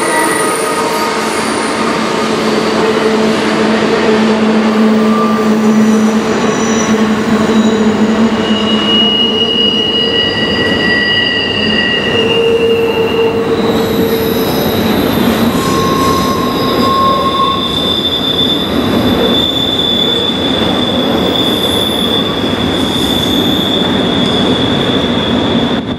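Double-stack intermodal container cars of a freight train rolling across a steel trestle bridge: a steady rumble of wheels on rail, with long shrill wheel squeals that come and go at several different pitches.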